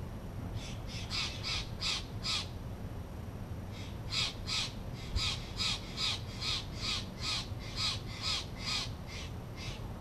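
Steller's jay giving fast runs of short, harsh calls, about two to three a second: a run of about six near the start, a short pause, then a longer run of about fifteen.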